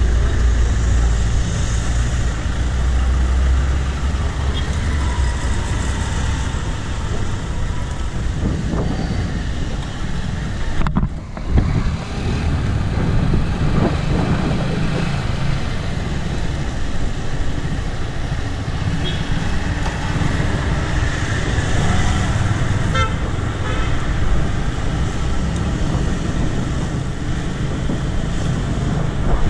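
Road traffic noise from cars and other motor vehicles passing on the road, with a vehicle horn tooting. A steady low rumble runs underneath, broken by a short dip about a third of the way in.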